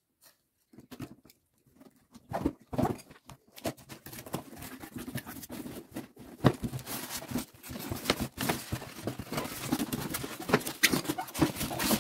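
Irregular scrapes, taps and rustles of a cardboard box being slit open with a utility knife and its flaps pulled back, with plastic wrapping crinkling near the end.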